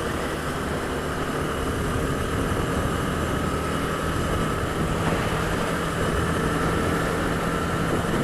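Honda Twister's single-cylinder 250 cc engine running at a steady cruising speed, its note holding level, over an even hiss of wind and road noise.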